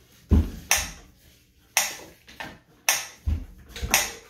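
Sharp clicks at an irregular pace of about one a second, a few of them with a dull thump beneath.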